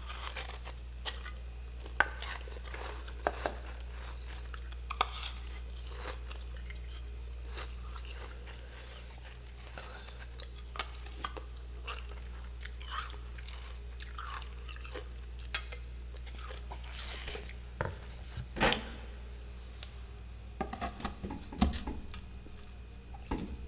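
Close-up crunchy chewing of scraped freezer frost: irregular crisp crunches and crackles, more of them packed together near the end, over a steady low hum.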